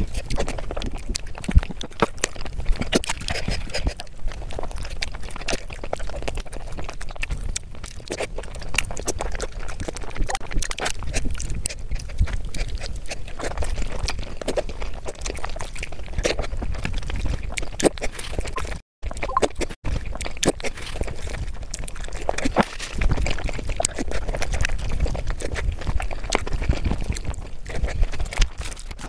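Close-miked eating: wet chewing and lip-smacking with many short clicks, and hands squishing gravy-soaked rice. The sound cuts out twice briefly about two-thirds through.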